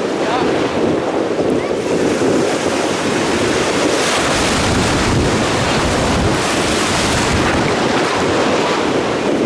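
Wind buffeting the microphone over the wash of choppy sea surf, gusting harder for a few seconds in the middle.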